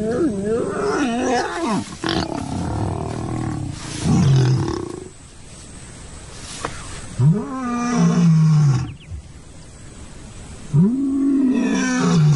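Lion roaring: a series of long, deep moaning calls. The clearest three come about every three and a half seconds, each rising then falling in pitch.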